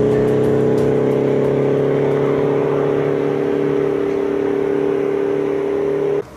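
A motor engine running steadily with an even hum, its pitch sinking slightly; it cuts off abruptly near the end.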